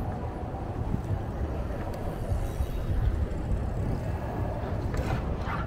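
City street traffic heard from a moving bicycle: a steady mix of passing vehicles, with a low rumble of wind on the microphone.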